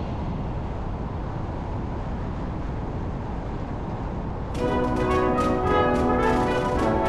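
Steady road and tyre noise of a car driving through a road tunnel, then brass music starts about four and a half seconds in.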